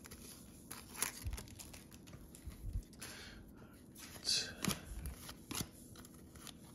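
A stack of Upper Deck hockey trading cards being flipped through by hand: faint, scattered slides and ticks of card against card.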